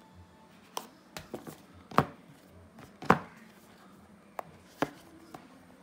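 A knife blade and hands knocking against a cardboard phone box as its seal stickers are slit. There are about eight sharp taps, the two loudest a second apart in the middle.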